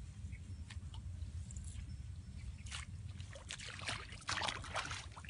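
Shallow ditch water splashing and sloshing as someone wades in, in several bursts from about halfway through, over a steady low rumble.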